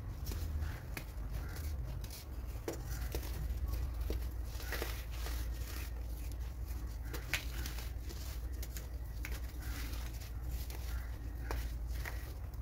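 Baking soda clumps being squeezed and crumbled between bare fingers: an irregular run of small crunches and crackles, with a steady low hum underneath.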